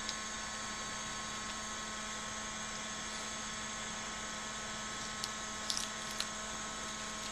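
Zefon BioPump Plus air-sampling pump running with a steady hum of several tones, drawing 15 litres of air a minute. A few small clicks of a plastic spore-trap cassette being handled come between five and six seconds in.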